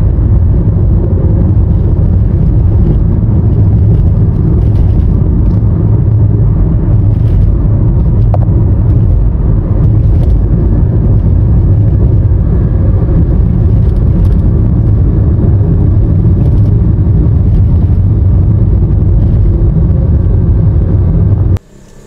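Steady low rumble of a moving vehicle's engine and tyres on a paved road, heard from inside the vehicle while it drives. It cuts off abruptly near the end.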